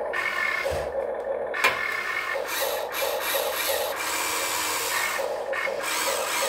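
Huina 1592 RC toy excavator at work: its electric motors and plastic gears whir as the boom and arm move, over the toy's simulated engine sound from its speaker, with a sharp click about one and a half seconds in.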